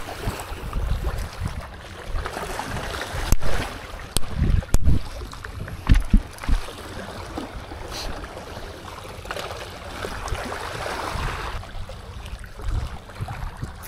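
Wind buffeting the microphone over small waves lapping against shoreline rocks, with a couple of sharp clicks a few seconds in.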